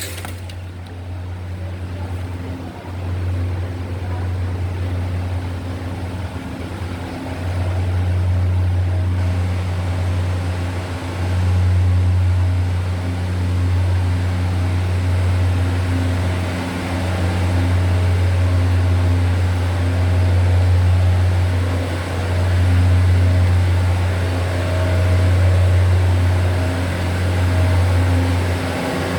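Train running, a steady low hum with rumbling noise that grows louder over the first several seconds and then holds with slow swells.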